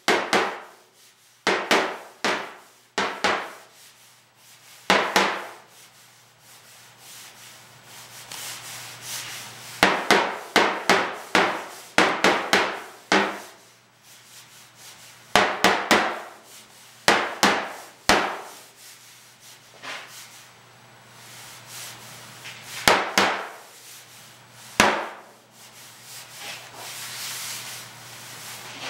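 Wooden mallet tapping on a Citroën DS trunk lid to work out a dent, in quick runs of light blows. Between the runs, a hand rubs over the panel surface.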